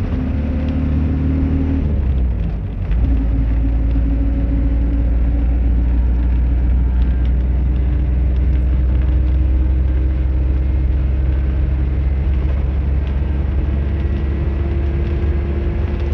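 Bus engine running, heard from inside the bus with its windows open. About two seconds in, the engine note falls and the sound dips briefly, then the engine pulls steadily again, its pitch slowly rising.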